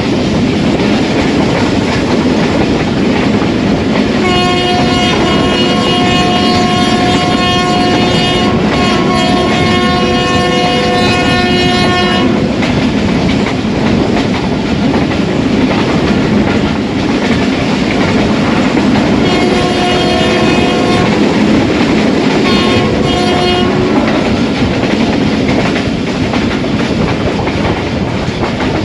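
Two trains passing each other at speed, heard through an open carriage window: steady wheel clatter and rushing air. A diesel locomotive's horn gives two long blasts about four seconds in and two shorter ones around twenty seconds in.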